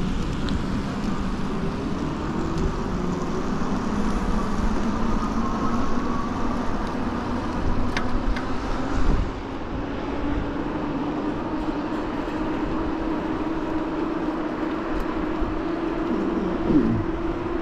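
Electric bike's hub motor whining, its pitch rising as the bike picks up speed and then holding steady, over wind and tyre noise from the ride.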